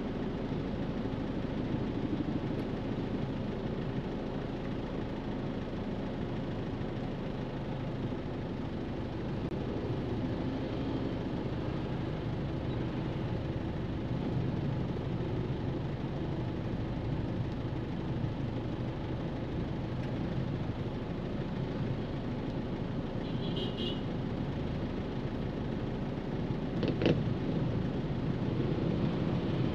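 A car driving through city streets: steady engine and road noise, with a brief high-pitched chirp about two-thirds of the way in and a single sharp click a few seconds before the end.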